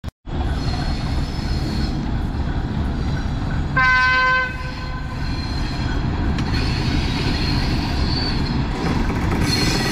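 ChME3 shunting diesel locomotive approaching with a gondola train, its engine and wheels giving a steady low rumble, with one short horn blast about four seconds in, sounded as a greeting.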